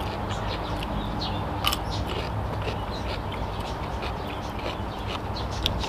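Close-up chewing and crunching of a mouthful of food, with many short, crisp clicks scattered throughout, over a low steady hum.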